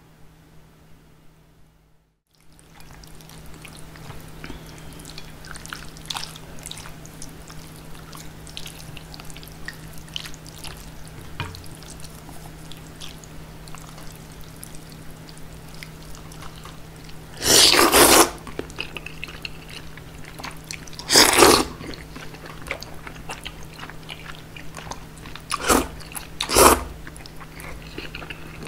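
Chopsticks stirring and lifting noodles in a bowl of cold soybean-milk noodle soup (kongguksu), with soft clicks and wet sloshing sounds. Then come loud slurps of the noodles: a long one past the middle and three shorter ones toward the end.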